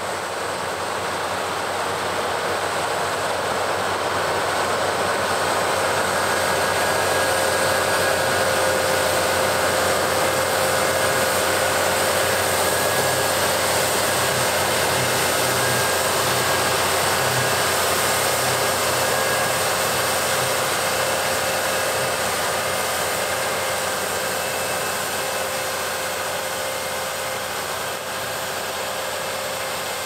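Claas Lexion combine harvester running under load, a steady machine drone with a hiss that grows louder and then fades, as if passing by.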